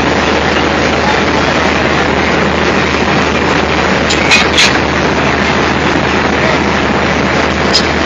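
G-scale model train running on its track: a steady rolling and motor noise with a low hum, broken by a few sharp clicks about four seconds in and again near the end.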